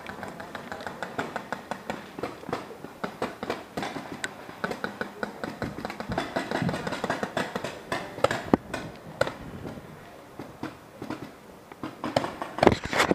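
Paintball markers firing across the field: an irregular run of sharp pops, several a second, with a louder close cluster near the end.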